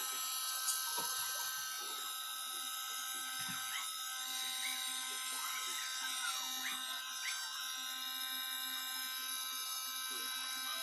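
Handheld electric hair dryer running steadily: a constant fan hiss with a steady motor whine.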